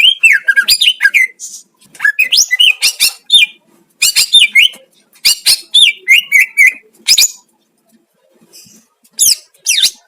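Cucak ijo (green leafbird) singing: loud, varied phrases of rapid chirps and quick whistled glides, each a second or two long with short pauses between, and a longer pause shortly before the end.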